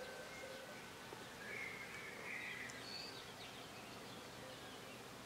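Songbirds chirping and calling faintly over a steady outdoor hiss, with a short flurry of chirps about two seconds in.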